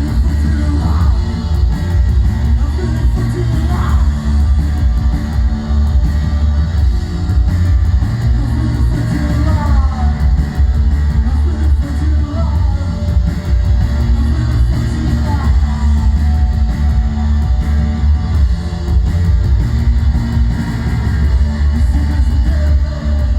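Post-punk band playing live in an instrumental passage: a heavy, steady bass and drum backing under electric guitar, with several short guitar phrases sliding downward in pitch in the middle.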